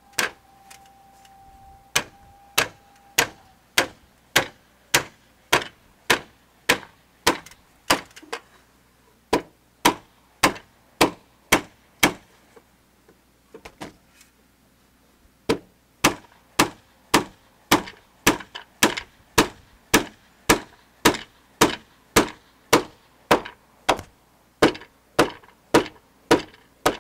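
Wooden peg being driven into a round-timber purlin joint with a heavy mallet whose head is a lawn bowl: steady, evenly spaced blows about two a second, with a pause of a few seconds about halfway through.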